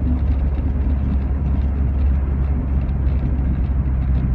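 Rover 45's engine and tyre noise on a snowy road, heard from inside the cabin: a steady low drone. The engine is dropping a cylinder.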